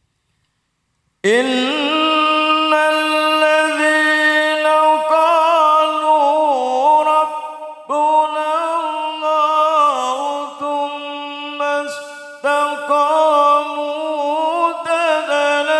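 A man reciting the Quran in melodic tilawah style, drawing out long, ornamented notes with rises, falls and wavering turns, pausing briefly for breath twice. The voice starts about a second in, after silence.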